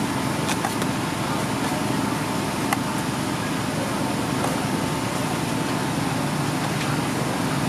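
Outdoor night-market ambience: a steady background din with a constant faint hum and a few light clicks and clinks.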